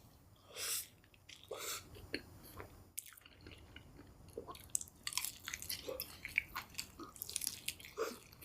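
Close-miked eating sounds: bites and chewing, a few separate smacks early on, then a dense run of short, sharp, wet clicks through the second half.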